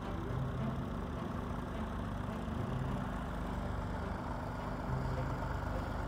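Tractor engine running steadily.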